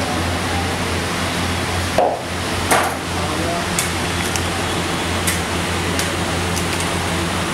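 Eggs frying in oil in a giant pan: a steady hiss of sizzling over a low hum, with a few sharp clicks and knocks, the loudest about two seconds in.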